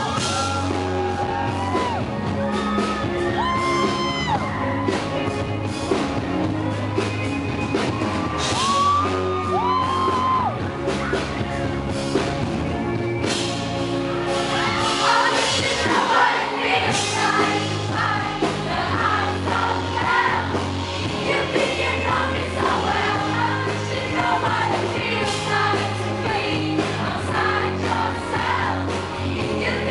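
Live band playing a pop song with a woman singing lead through the PA system, with long held sung notes over a steady bass line.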